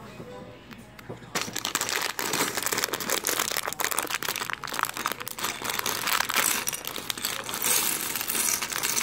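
Clear plastic parts bag of toy building bricks being pulled open and crinkled by hand, starting about a second and a half in, with a steady crackle of plastic and small clicks.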